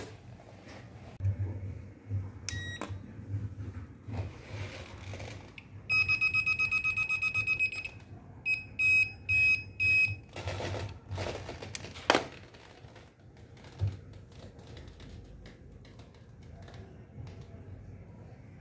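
Handheld voltage tester beeping at outlet wiring: a single short beep, then a rapid run of beeps for about two seconds, then a few slower beeps, signalling live voltage. Handling clicks and rustles around it, with one sharp click about twelve seconds in.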